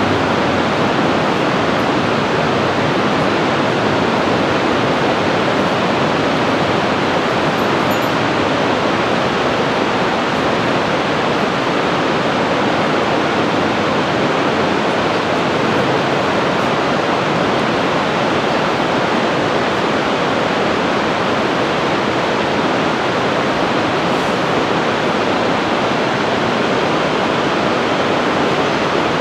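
Steady, even rushing of a mountain river in the gorge below, unchanging throughout.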